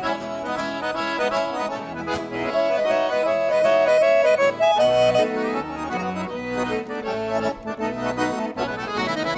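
Accordion playing a lively instrumental interlude of a gaúcho folk song between sung verses, over a steady rhythmic accompaniment.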